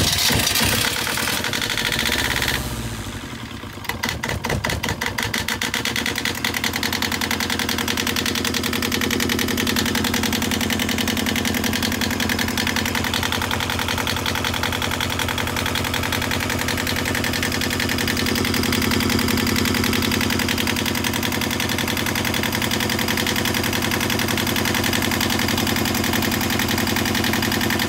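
Small inboard marine diesel engine being started: it turns over, catches about four seconds in and settles into a steady, even idle.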